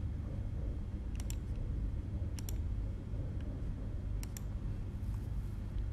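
Sharp metal clicks of a hex key working the screws under a 3D printer's extruder: three pairs of quick clicks, each pair about a second after the last, over a steady low rumble.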